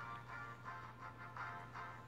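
Faint background music with a quick, even pulse of short notes, over a steady low hum.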